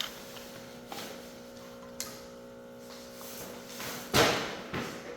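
A few light knocks, then one loud bang about four seconds in that rings briefly, followed by a smaller knock, over a steady low hum.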